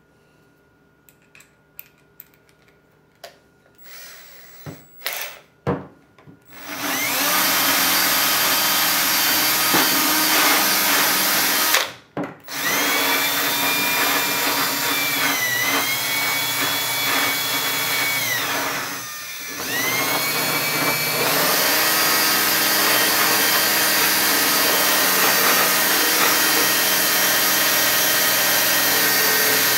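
Cordless drill spinning a small wire wheel against a painted plastic auto body part, grinding the paint down to bare plastic. After a few seconds of light clicks and knocks, the drill runs with a steady high motor whine. It stops briefly about twelve seconds in, sags in pitch under load a few seconds later, and eases off once more before running on.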